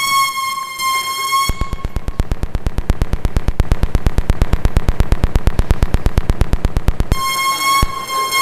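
Electrical signal from the control chip inside a cheap disco LED light, fed into a mixer and heard as a steady high electronic tone that switches about a second and a half in to a fast, even train of clicks, roughly ten a second, and goes back to the steady tone near the end.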